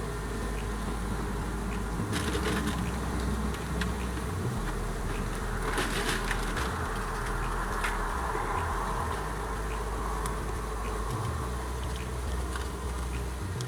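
Honeybees buzzing around an open hive as they are fed sugar, a steady hum. There are brief rustling noises about two and six seconds in.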